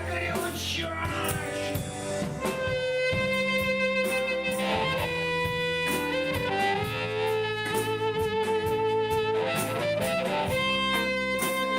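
Live band playing an instrumental passage: guitar over a drum kit, with a lead line of long held notes that change pitch every second or so.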